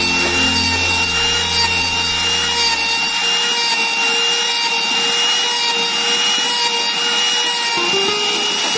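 Electric trim router running with a steady high whine while its bit cuts a slot into the edge of a wooden board.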